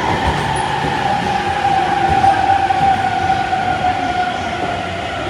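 Freight train hauled by an EF210 electric locomotive passing at speed: a loud, steady rumble of wheels on rail with a high whine that slowly falls in pitch.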